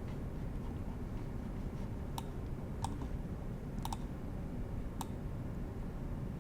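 Computer mouse clicking a few times, one of them a quick double click, over a steady low hum.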